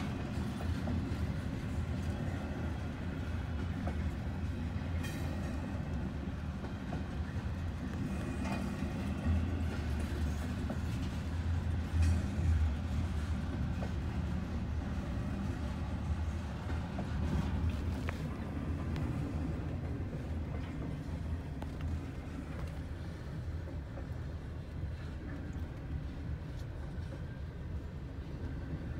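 Double-stack intermodal freight train rolling slowly past: a steady low rumble of wheels on rail with a few faint clicks, muffled through a closed car window.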